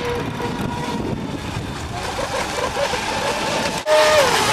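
Radio-controlled model power boat's small petrol engine running out on the water, its pitch holding steady, then wavering up and down. The sound drops out briefly near the end, and then the engine is louder with its pitch falling.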